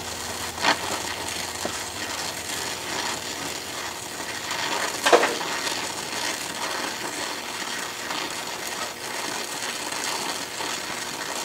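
Oxy-acetylene welding torch hissing steadily while filler rod is melted onto a steel shaft to build up its worn diameter. Two sharp clicks, about a second in and about five seconds in.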